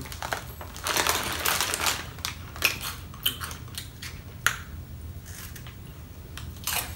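Foil snack bags crinkling and crunchy puffed snacks being bitten and chewed: a stretch of rustling about a second in, then a few sharp crunches.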